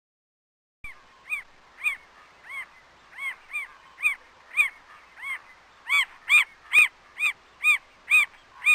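A bird calling, a series of short notes that each rise and fall in pitch, repeated about twice a second, getting louder about six seconds in.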